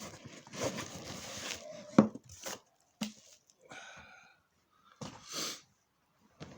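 Packaging being handled, with rustling and one sharp knock about two seconds in, and a person with a head cold sniffing and breathing noisily near the end.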